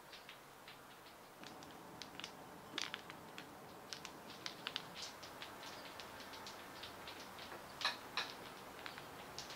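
Bobbins wound with silk cord clicking and clacking against one another and the braiding stand as they are lifted and moved one by one while a cord is braided. The clicks come irregularly, a few a second, with two sharper clacks near the end.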